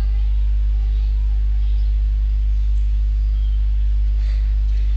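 Loud, steady electrical mains hum from the recording chain, with a faint voice wavering quietly underneath.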